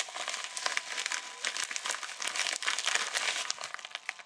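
Packaging crinkling as it is handled: a small white bag rustled and crumpled in the hands, an irregular run of dense crackles that thins out near the end.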